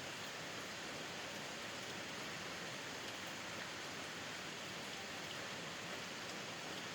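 Steady rain falling, heard from a porch as an even hiss with faint scattered drop ticks.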